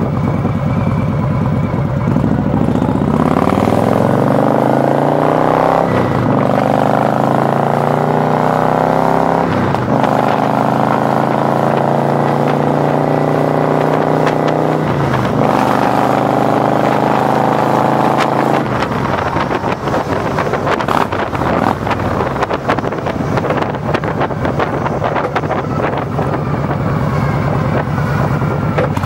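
Stage 2, cammed 2016 Indian Springfield Thunder Stroke 111 V-twin, breathing through Freedom Performance True Dual headers and Eagle mufflers, accelerating hard. The revs climb and drop back with each upshift, four times through the gears. It then settles into a steady cruise with wind buffeting the microphone.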